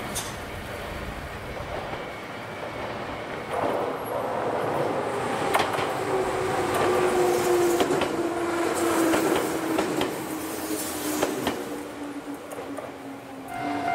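Two-car electric commuter train approaching and passing close by on a single track. Its motors give a tone that slides slowly lower in pitch, and the wheels clack over rail joints as it goes by. It is loudest midway and fades away near the end.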